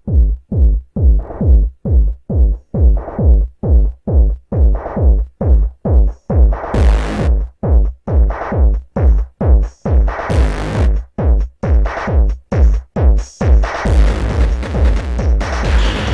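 Electronic futurepop instrumental intro: a pulsing synth bass at about two pulses a second, its tone brightening and darkening like a filter sweep, with two short noisy swells and the arrangement filling out densely near the end.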